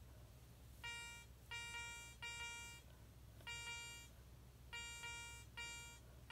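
Garrett Ace 300 metal detector giving its target tone: seven short beeps of about half a second each, all at the same pitch, as a copper penny is swept past the search coil about six inches away.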